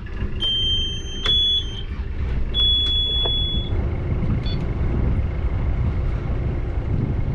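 A Yanmar marine diesel engine being started from its helm key panel. The panel's alarm sounds twice as long high beeps, with a click between them. Under the beeps the engine runs with a steady low sound.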